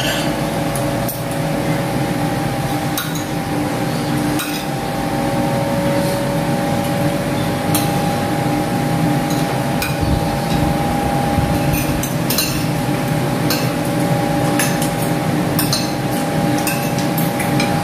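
Metal spoons and forks clinking and scraping on ceramic plates and bowls as people eat, in scattered clicks throughout. Underneath runs a steady machine hum with several held tones.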